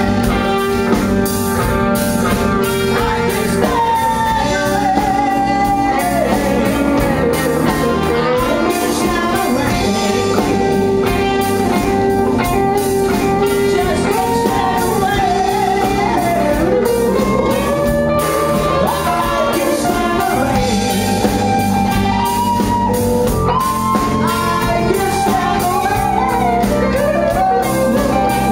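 Live soul-rock band playing loudly: drums, electric bass, electric guitar and keyboard keep a steady groove under a wavering, sung lead line with held, bending notes.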